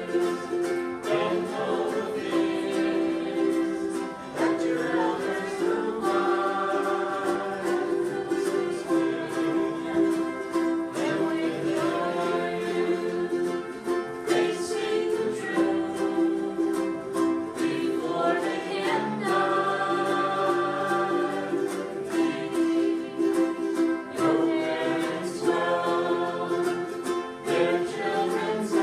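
Several ukuleles strummed together while a group of voices sings in unison, a small ukulele band performing a song.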